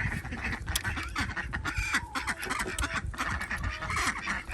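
Backyard chickens and ducks calling together: a busy mix of short clucks and soft quacks from the flock.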